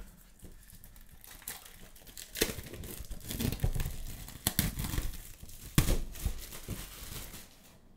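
Clear plastic shrink-wrap being peeled off a cardboard box and crumpled by hand: irregular crinkling with a few sharp crackles, starting about a second and a half in and tailing off near the end.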